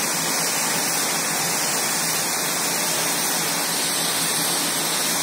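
A steady, even hiss like static, with no distinct events.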